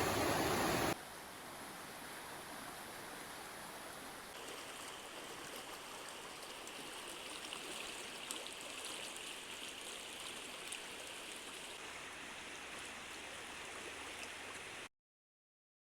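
Water running in a small stream, a steady wash of flowing water with faint ticks in it; it is preceded in the first second by a louder steady hiss and cuts off abruptly near the end.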